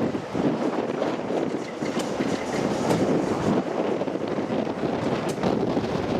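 A diesel-hauled train on the move, with wind on the microphone.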